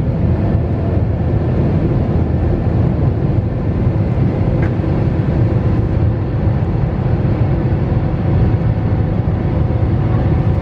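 Steady low roar of an airliner's jet engines and rushing air, heard from inside the passenger cabin.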